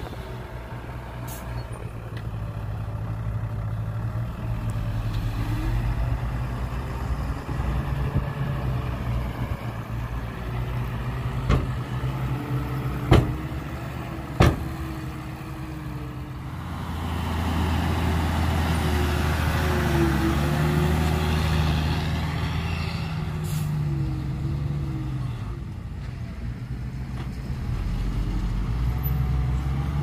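Diesel engine of heavy earth-moving machinery running steadily, growing louder a little past halfway. Three sharp knocks come within a few seconds of each other near the middle.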